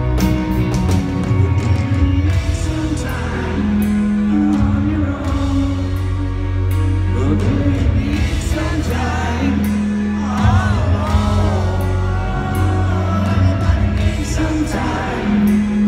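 Live rock band playing a slow power ballad: a man sings at a grand piano over sustained bass notes, drums and cymbals.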